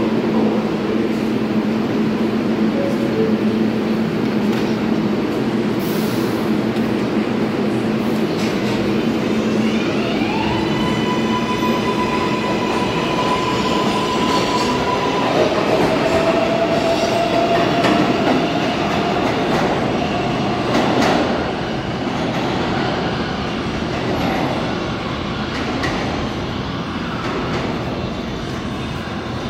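R142A New York City Subway train pulling out of a station. A steady hum while it stands gives way, about ten seconds in, to the electric traction motors' whine, which rises and holds, then steps down in pitch and climbs slowly again. Under it the wheels rumble and clatter on the rails as the cars pass, easing off as the train draws away.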